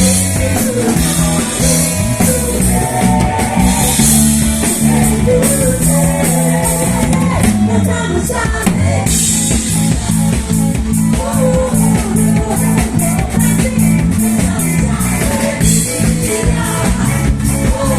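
Live band playing an upbeat song with drum kit, bass and guitar, with a sung melody over it.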